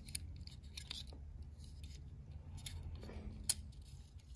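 Faint clicks and light rattling of a Hornby six-plank model railway wagon being handled and turned over in the fingers, with one sharper click about three and a half seconds in.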